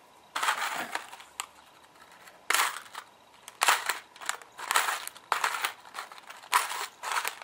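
Small scissors snipping through a plastic blister pack to open it, with the plastic crackling and crinkling in about five short bursts.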